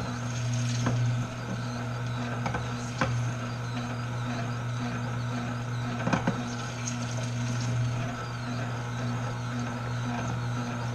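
Tribest Green Star Elite twin-gear juicer running with a steady low motor hum. A few short crackling clicks come as lemon pieces are pushed down the feed chute and crushed.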